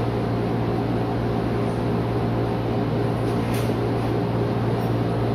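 Steady low mechanical hum over a constant hiss of room noise, with no speech.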